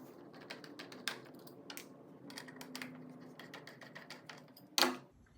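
Small irregular clicks and taps as a wall clock is handled and turned over, with one louder knock about five seconds in.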